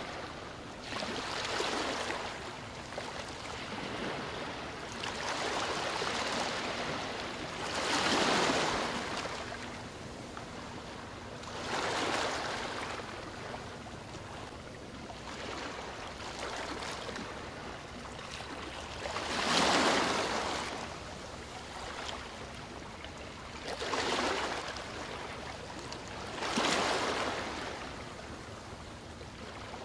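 Small waves washing against the riverbank: about seven swells of rushing, splashing water that rise and fall every few seconds, the loudest about eight and twenty seconds in. A faint steady low hum runs underneath.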